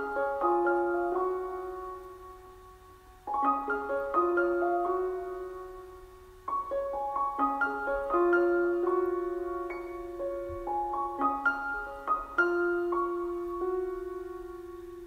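Gentle background piano music: short phrases of notes that ring and fade away, a new phrase starting every few seconds.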